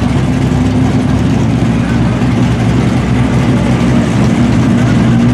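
LS V8 engine of a lifted Chevy Silverado mud truck running steadily at low revs, a deep, even rumble.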